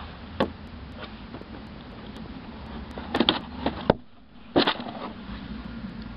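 Cardboard jigsaw puzzle boxes being handled and a lid taken off: a few sharp knocks and scrapes of cardboard, bunched together about three to four seconds in and again just after, over a steady low background hum.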